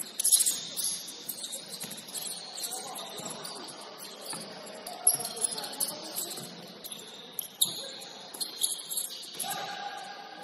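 Sounds of a basketball game in a gym: short high-pitched sneaker squeaks on the court floor, a few sharp knocks, and faint voices.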